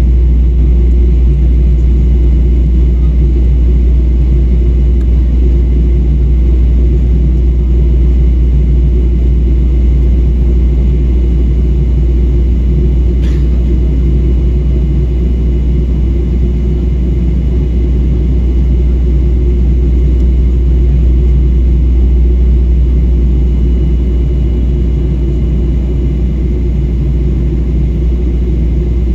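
Steady low drone inside a jet airliner's cabin in flight: engine and airflow rumble, unchanging throughout, with one faint click about halfway through.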